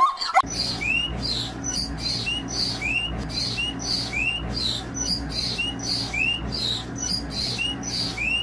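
A bird calling over and over in short, quick chirps, about two a second, over a steady low hum.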